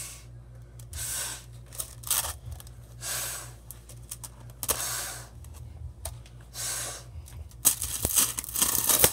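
Plastic rainbow Slinky's coils clattering and swishing as they slide from hand to hand, a burst about once a second, with a louder, quicker run of clatters near the end.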